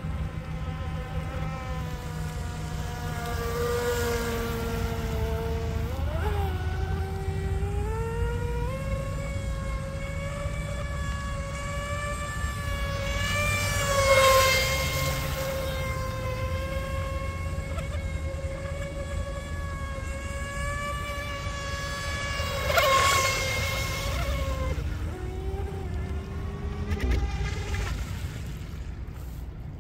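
High whine of a 20-inch RC mono hull speedboat's electric motor running at speed, its pitch dipping and rising as the throttle changes. It swells loudest, with a hiss of spray, as the boat passes close about 14 seconds in and again around 23 seconds.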